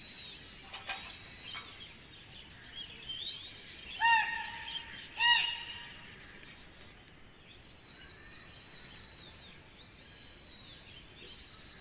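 Birds calling, with steady high chirping throughout and two loud short calls about four and five seconds in.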